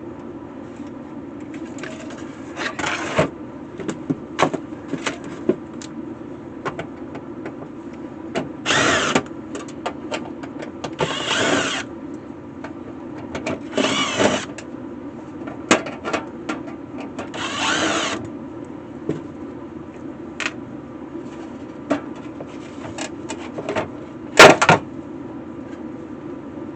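Handling of a fence charger on a workbench: scattered clicks and knocks and several short scraping or rustling noises, with one loud knock near the end, over a steady low hum.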